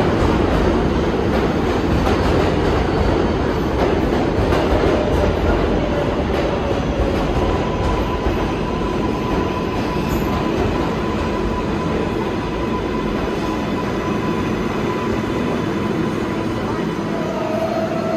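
New York City subway train moving through the station, a loud steady rumble of steel wheels on rail that eases slightly. A thin, steady squeal from the wheels or brakes rises out of it from about eight seconds in to about fourteen seconds, and a short one comes near the end.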